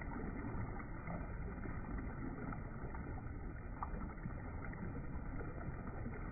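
Shallow river current running steadily over a stony bed, an even rush of water with no break.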